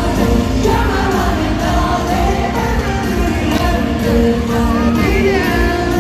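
Live pop concert heard from the audience through a phone: a loud amplified backing track with heavy bass and a male group singing over it.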